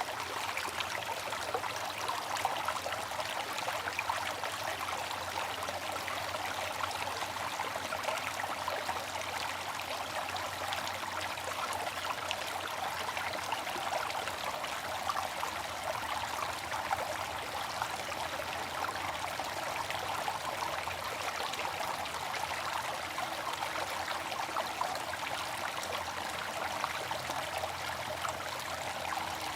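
Bamboo water fountain running: a steady trickle of falling water, unchanging throughout.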